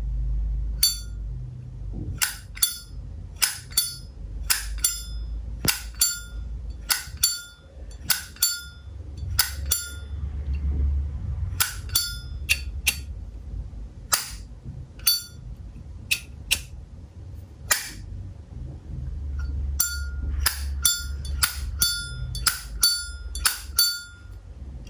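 Zippo lighter's lid flicked open and snapped shut over and over: dozens of sharp metallic clicks, each with a brief bright ring, coming in quick runs with a couple of short pauses.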